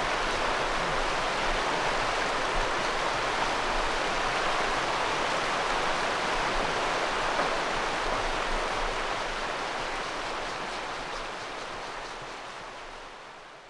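Shallow river water running steadily, a constant rushing wash that fades out near the end.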